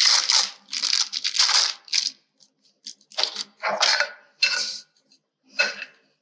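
Foil wrapper crinkling and tearing in short bursts as it is peeled off a block of cream cheese, then several knocks and scrapes of a spoon against a glass mixing bowl, some with a brief ring.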